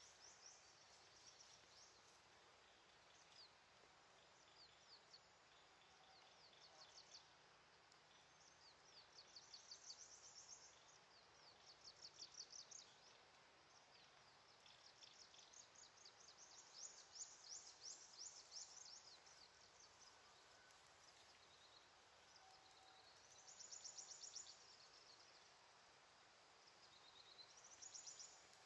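Faint runs of rapid high-pitched chirping notes from a small bird, each trill lasting one to three seconds and recurring every few seconds, over a low outdoor hiss.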